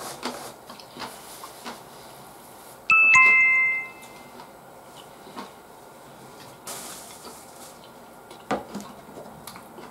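A two-note electronic chime, a 'ding-dong' stepping down in pitch, sounds about three seconds in and rings for about a second. Around it are faint scattered clicks and the rustle of a tissue being pulled and used.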